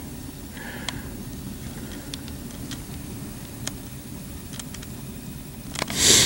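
Quiet outdoor ambience beside a calm pond: a steady low rumble with a few faint, scattered clicks. Just before the end comes a short, loud rush of noise.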